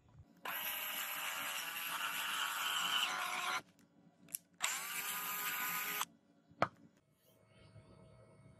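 Cordless drill turning a tap into a hole in a brass piece held in a vise, cutting a thread. It runs in two bursts, about three seconds and then about a second and a half, the second starting with a rising motor whine, with a sharp knock shortly after it stops.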